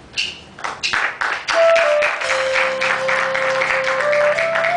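Audience applause, beginning with a few scattered claps and swelling to full clapping about a second in. Over it, a keyboard starts a slow intro of long held notes that step down in pitch and then climb back up.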